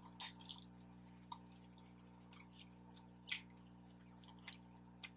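Faint, wet mouth sounds of a person chewing food, a handful of soft smacks and clicks, the loudest about three seconds in, over a faint steady hum.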